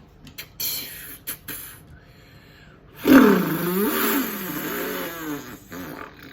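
A person imitating a revving car engine with their voice: a loud vroom that sweeps up and down in pitch for about three seconds, starting about three seconds in. Before it come a few light clicks and rustles.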